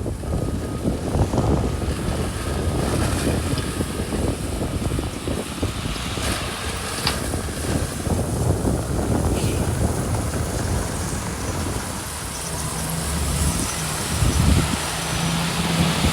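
Diesel engine of heavy earthmoving machinery running under work, a continuous rumble, with wind buffeting the microphone. A steadier engine note comes in over the last few seconds.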